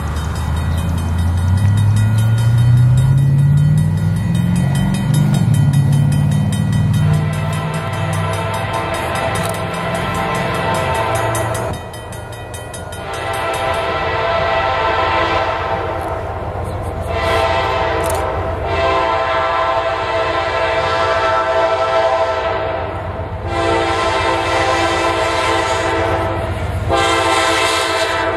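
Norfolk Southern diesel freight locomotive's air horn sounding a series of long blasts broken by short gaps, the grade-crossing warning pattern, as the train approaches. In the first seconds, before the horn, a low drone rises in pitch.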